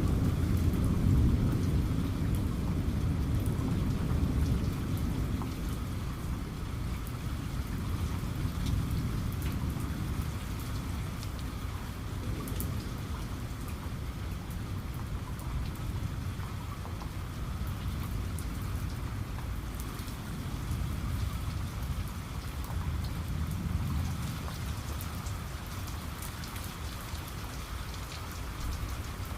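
Steady rain, with a deep rumble underneath and scattered faint ticks, easing slightly over the stretch.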